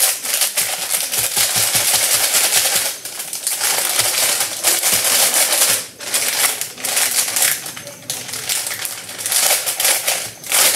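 Foil cake-mix packet crinkling and crackling loudly as it is handled and worked open, in several long stretches with brief pauses between them.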